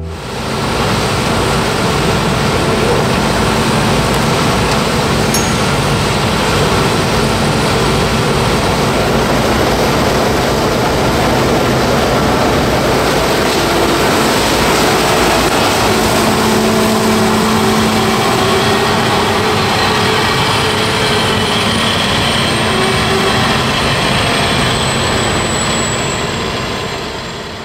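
CLAAS Lexion 780 TT combine harvester running under load while cutting and threshing sorghum: a steady, dense mechanical din from its engine, header and threshing system. It fades out at the very end.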